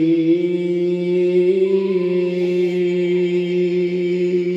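A man's voice chanting Quranic recitation (tilawah) into a microphone, holding one long, steady note with only a slight dip in pitch about two seconds in.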